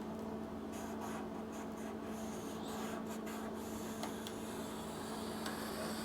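Light, irregular scratching of a hand tool on sheet steel, mostly in the first half, with a couple of faint clicks later, over a steady low hum.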